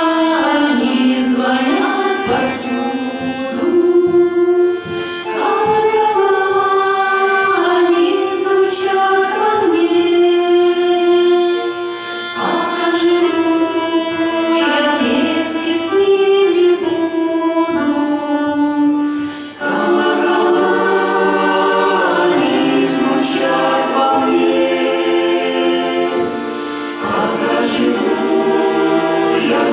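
A vocal ensemble singing a song in Russian in harmony, with several voices holding long notes together and short breaks between phrases.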